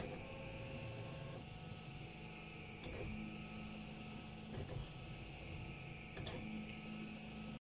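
Prusa i3-style 3D printer printing: its stepper motors whine at steady pitches that change every second or two as the print head moves, over a steady hum. The sound cuts off suddenly near the end.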